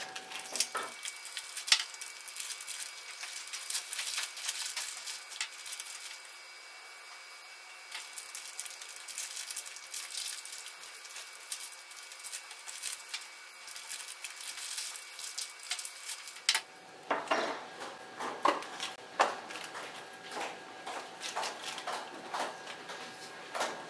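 Toy packaging being handled: a cardboard box and a clear plastic bag crinkling and rustling, with many small clicks and crackles.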